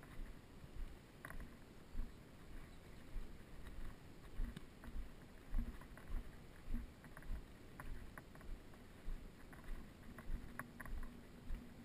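Footsteps on packed dirt, about two a second, with the body-worn camera jostling and now and then a small click.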